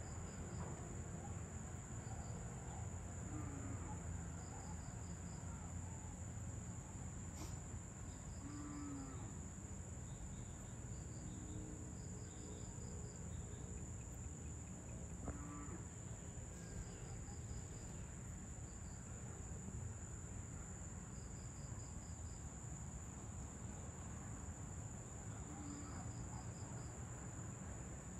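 Dusk insect chorus of crickets: a steady high-pitched trill, with shorter chirps in quick groups of four or five recurring every few seconds. A steady low rumble lies beneath, and a few short, low distant calls come now and then.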